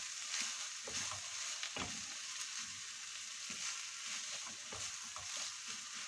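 Noodles with pork belly and carrot sizzling steadily in a non-stick wok on low heat while being stirred and tossed with a wooden spatula, with short scrapes and taps of the spatula every second or so.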